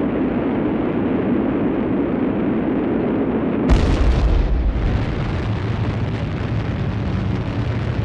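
Volcanic eruption: a continuous deep rumble with a sudden loud blast a little under four seconds in, after which the rumble carries on.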